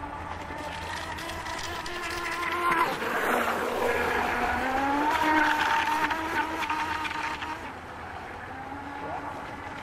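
Electric RC tunnel boat's motor whining at speed. It gets louder as the boat sweeps close past the shore, the pitch dropping sharply as it goes by about three seconds in, then climbing again as it speeds away, with a hiss of spray.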